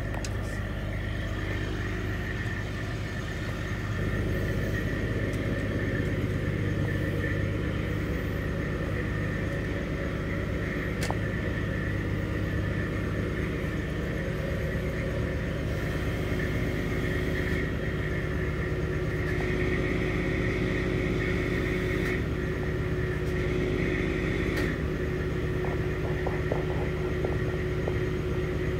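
A crane truck's diesel engine runs steadily, driving its hydraulic knuckle-boom crane as it lifts a concrete septic tank. A steady higher tone sits over the low rumble, and the engine picks up slightly about four seconds in.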